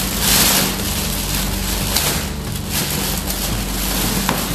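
Thin plastic shopping bags rustling and crinkling as hands rummage through them, in several bursts that swell and fade.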